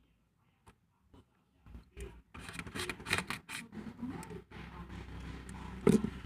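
Paper and journaling materials being handled: after a near-quiet start, a dense run of small clicks, scrapes and rubs begins about two seconds in, with one louder sudden knock near the end.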